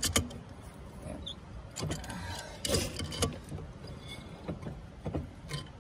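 A hand wrench clicking and clinking against the steel nuts on a golf cart's wheel hub as they are tightened: scattered sharp metallic taps, with a quick run of them about halfway through.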